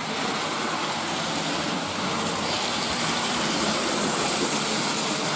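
Hornby model steam locomotives running on a layout: the steady whirring rumble of their small electric motors and wheels on the track.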